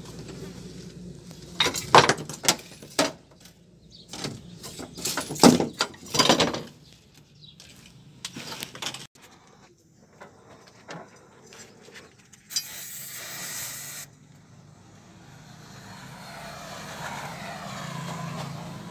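Car body repair at a rusted door sill: a run of sharp knocks and metal clatter in the first few seconds, scattered smaller clicks, a short hiss about two-thirds through, then a steady rush of noise that slowly grows louder near the end.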